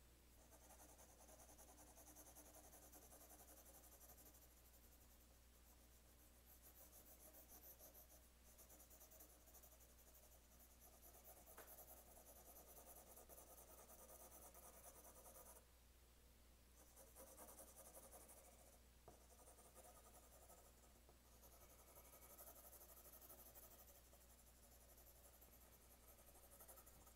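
4B graphite pencil shading on 50 lb paper: a faint, steady scratching of repeated strokes, in runs broken by short pauses.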